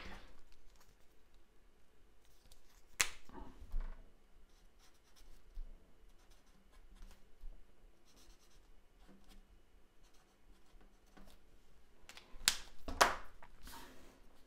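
Stampin' Blends alcohol marker colouring a stamped image on cardstock: faint scratching of the marker tip on the paper. A few sharp clicks break in, one at the start, one about three seconds in and several close together near the end.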